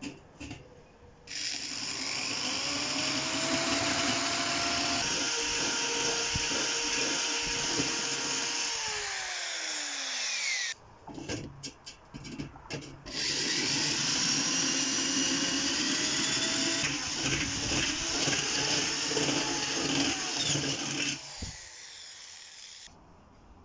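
Cordless drill with a 10 mm twist bit widening a pilot hole through the sheet-metal wall of a Weber chimney starter. It runs in two stretches of about eight seconds each, with short clicks between them. The motor whine winds down as the first stretch ends.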